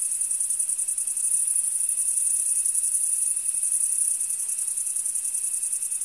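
Crickets chirping: a continuous high-pitched chorus of rapid, even pulses.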